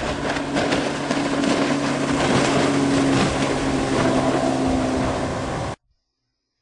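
Motorboat under way: a steady engine hum under a dense rushing of water, which cuts off suddenly near the end.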